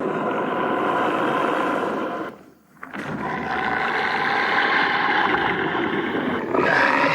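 Gudis kaiju roar sound effect: a roar of about two seconds, a brief break, then a second, longer roar that climbs higher near the end.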